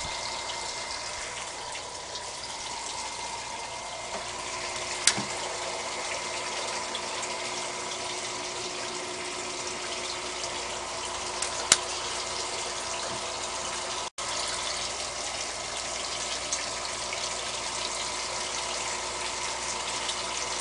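Water running and splashing steadily as it overflows continuously from the pH-probe capsule back into the aquaponics fish tank, with a faint steady tone underneath. Two sharp clicks, about five and twelve seconds in.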